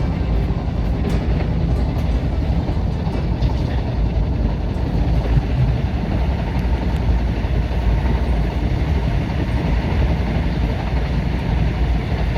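A train running on the rails: a steady, loud rumble with rail noise.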